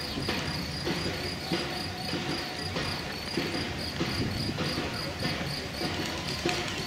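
Footfalls of many runners on an asphalt path, a dense patter of shoe strikes as a pack of runners passes. A steady high-pitched tone runs under it.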